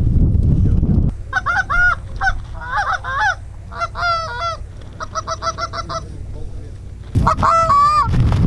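Wind buffeting the microphone, then about a second in a run of Canada goose honks and clucks: short, quick notes in irregular bursts, with a louder string of honks near the end as the wind noise returns.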